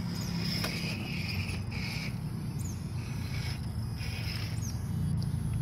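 Electric motor and gears of a 1.9-scale RC rock crawler whining in short stop-start bursts of throttle, over a steady low hum.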